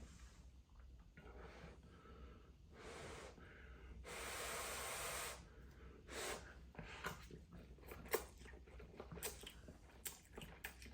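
A man breathing hard through the burn of very spicy noodles, with one long, loud breath out about four seconds in. After it comes a run of small clicks and smacks from eating.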